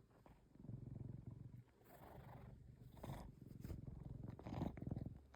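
Domestic cat purring in several stretches, a fast even rattle, with a couple of short, sharper noisy sounds about two and three seconds in.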